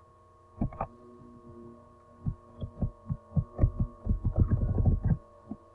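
Steady electrical hum with a run of dull knocks and thumps over it: a pair early, a few scattered ones, then a quick cluster about four seconds in, and one more near the end.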